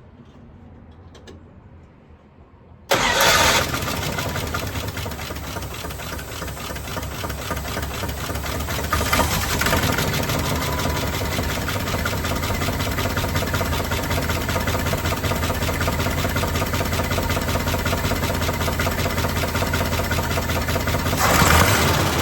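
Dodge W200's 318 V8 engine starting about three seconds in, catching at once and settling into a steady idle, then revving up briefly near the end.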